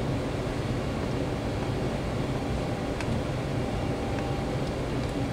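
Steady low hum of background machine noise, with a faint click about three seconds in from small parts being handled.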